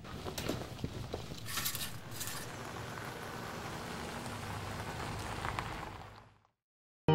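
Window blind slats clicking and rustling as they are pushed apart, over a steady hiss of room ambience that fades out to silence about six seconds in.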